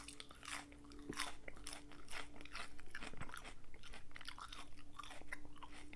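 Close-up chewing of a forkful of salad: crisp lettuce crunching between the teeth in many small, rapid, irregular crunches.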